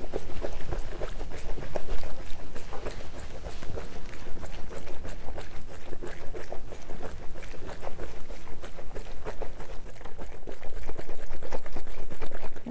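Cocktail shaker being shaken hard with ice and liquid: a fast, continuous rattle of ice cubes hitting the shaker walls, which stops abruptly at the very end.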